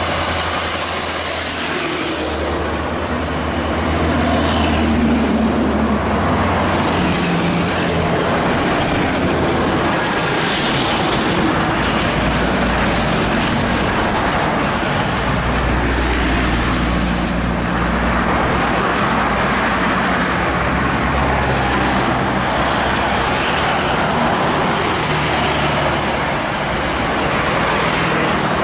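Road traffic of heavy vehicles, a truck and tour buses, going by close: diesel engines running with tyre noise. The engine note rises and falls several times as the vehicles pass.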